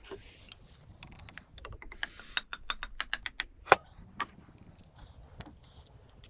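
Small hard parts and packaging being handled, making a series of light clicks and taps, with a quick run of clicks in the middle and one sharper knock just after it.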